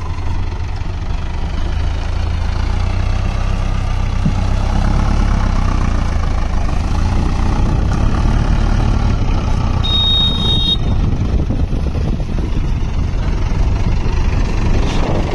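Mahindra Arjun Novo 605 Di-i 4WD tractor's four-cylinder diesel engine running under load as the tractor pulls out of a flooded paddy field onto the bank, its loudness building over the first few seconds.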